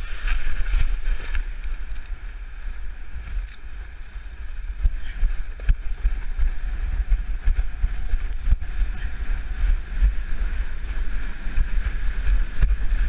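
Wind buffeting a GoPro's microphone in a low, steady rumble as it slides down a snow hill on a sled, with the hiss and scrape of a plastic sled over packed snow and a few small knocks from bumps.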